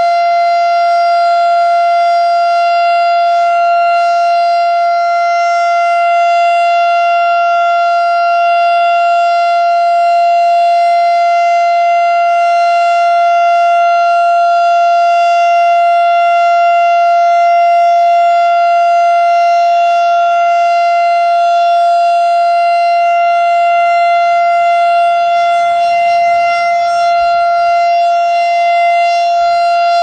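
Federal Signal STH-10 outdoor warning siren sounding a loud, steady alert tone held at one pitch, heard from about 120 feet. This unit ignored the cancel tones, so instead of the usual 30-second test it ran a full 3-minute alert.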